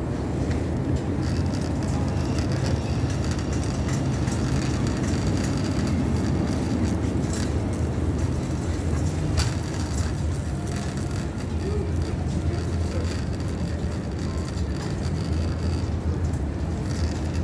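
Steady low rumble with a single sharp click about nine seconds in.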